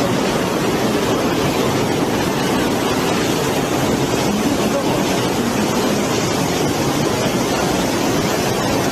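Floodwater rushing in a steady, loud, unbroken roar.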